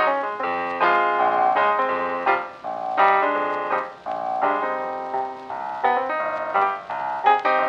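Background instrumental music led by piano, a quick run of short notes.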